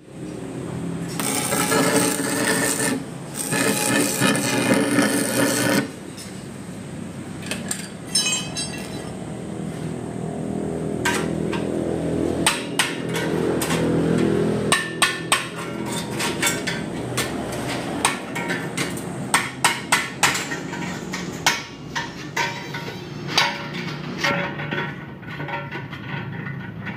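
Hammer blows on a metal motorcycle exhaust pipe being shaped by hand, many sharp irregular strikes through the second half. Before them comes about five seconds of loud steady rushing noise from shop work.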